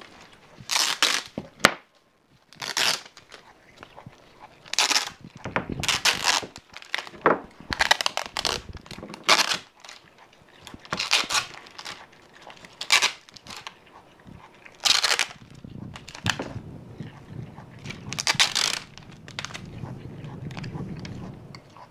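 Clear packing tape being pulled off its roll and crumpled by a monkey: about a dozen short ripping and crinkling bursts, quieter near the end.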